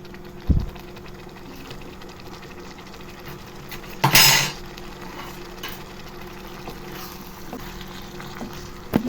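Kitchen utensils against a metal kadai while fried egg-potato pieces are added to gravy: a soft low thud about half a second in, then a short loud scrape about four seconds in, over a faint steady hum.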